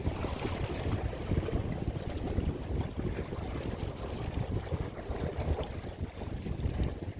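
Strong wind buffeting the microphone: a constant gusty, fluttering rumble.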